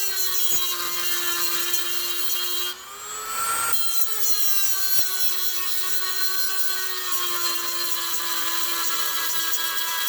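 Dremel rotary tool running at high speed, grinding down the heads of the rivets on an AK receiver. It keeps a steady high whine under load; about three seconds in it briefly eases off the metal and its pitch rises, then it bears down again and settles back to its working pitch.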